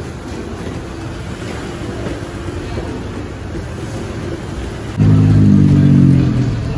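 Low traffic din, then about five seconds in a loud nearby motor vehicle engine running at a steady pitch for about a second before easing off.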